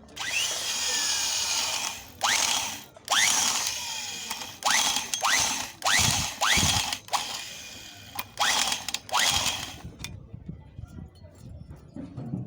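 Electric drill with a 20 mm bit cutting away the excess of a steel thread-repair coil in a chainsaw cylinder's spark plug hole. It runs in about nine short bursts, each starting with a rising whine as the motor spins up, and goes quiet for the last couple of seconds.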